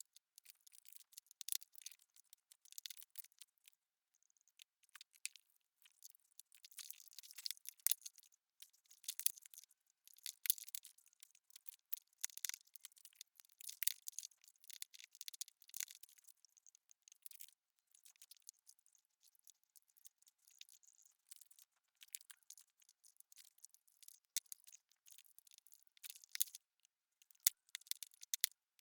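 Faint, irregular scratching and sharp clicks from hand work on small metal knife parts, with short pauses between bouts.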